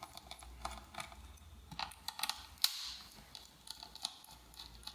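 Faint, scattered clicks and ticks of a small screwdriver working the captive screws of a ThinkPad T460s CPU fan, with one louder click about two and a half seconds in.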